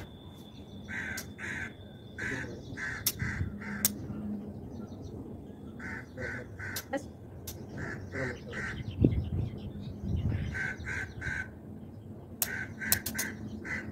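Crows cawing in short runs of two to four harsh calls, repeating every few seconds. A dull thump sounds about nine seconds in.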